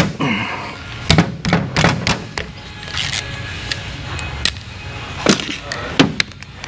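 Irregular metallic knocks and clicks of tools and engine parts being handled on the bench during a Harley Twin Cam engine teardown.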